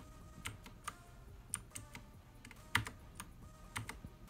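Redragon Kumara mechanical keyboard with clicky blue switches: single keys pressed one at a time at uneven intervals, about a dozen sharp clicks, one noticeably louder about two-thirds of the way through.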